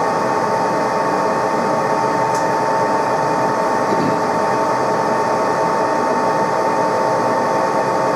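TOS SN63B engine lathe running with its spindle turning a large workpiece: a steady mechanical running sound from the geared headstock, with a constant high tone over it.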